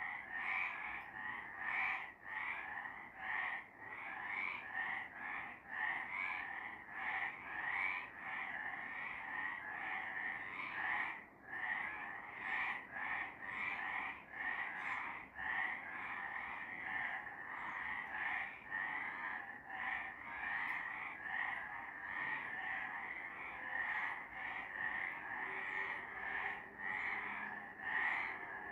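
A chorus of several frogs calling continuously, their overlapping high-pitched calls repeating without a break.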